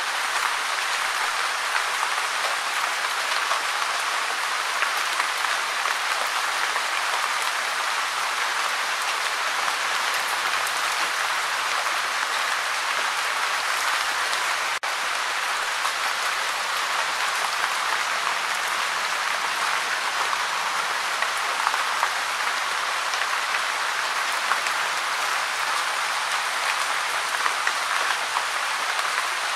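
Gentle rain falling steadily, an even, dense patter of many small drops, with a momentary dip about halfway through.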